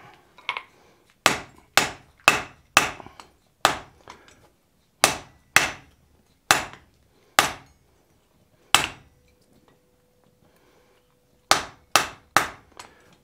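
Blacksmith's hand hammer striking a red-hot wrought iron hammer head held in tongs on the anvil. About ten sharp blows come at an uneven pace, roughly half a second to a second and a half apart, then a pause of about three seconds, then a quick run of four.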